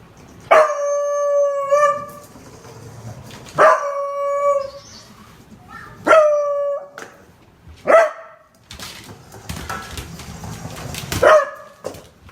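A beagle baying: five howling calls, each starting sharply and then holding a steady note. The first two are long, about a second and a half each, and the last three are shorter.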